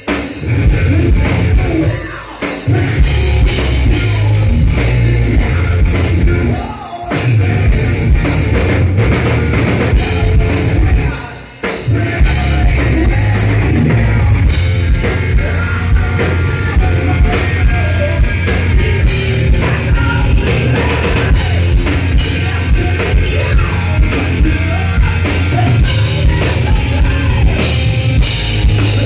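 Hard rock band playing live and loud: distorted electric guitar over a drum kit. The band stops for short breaks about two, seven and eleven seconds in, then plays straight through.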